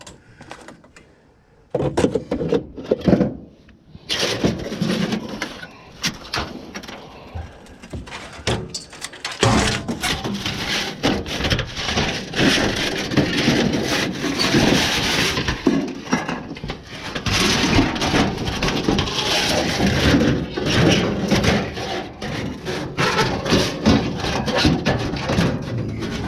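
Clattering, knocking and scraping of junk and scrap being handled and moved, a few separate knocks at first, then near-continuous clatter from about ten seconds in.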